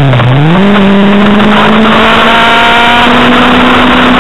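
Motorcycle engine heard onboard at track speed over wind rush: the revs dip briefly near the start, then climb and hold steady as the bike accelerates out of a corner.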